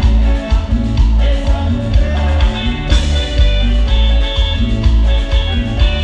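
Live tropical dance band playing, with a heavy bass line and congas and timbales driving the rhythm; more treble, like a metal shaker, comes in about halfway.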